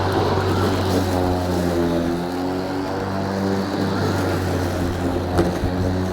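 EGO battery-powered lawnmower running steadily, its motor and blade giving a whirring hum that dips slightly in pitch about two seconds in and recovers. A single sharp tick near the end.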